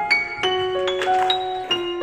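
Background music: a piano or electric piano melody, single struck notes every quarter to half second.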